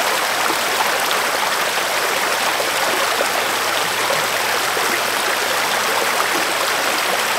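Small stream running over rocks in a shallow riffle: a steady sound of flowing water.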